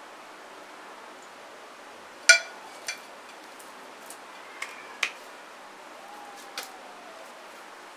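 Five short clinks and knocks of ceramic crockery. The first, a couple of seconds in, is the loudest and rings briefly; four lighter taps follow as plates and a bowl are handled and a metal-handled basting brush is set down on a plate.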